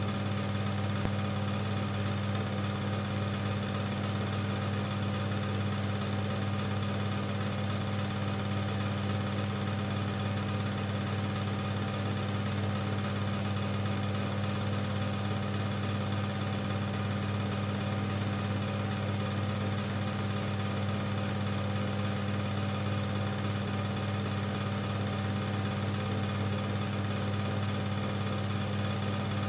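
Super 8 film projector running, its motor and film mechanism giving a steady mechanical hum.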